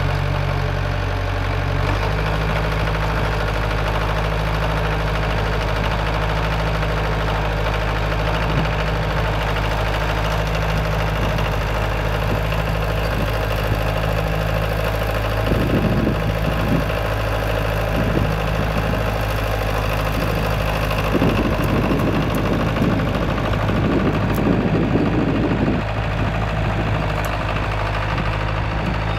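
Ferguson tractor engine running steadily as it powers its winch, with the engine note shifting about two seconds in. From about halfway, branches crackle and snap irregularly as the winch cable pulls a tree over.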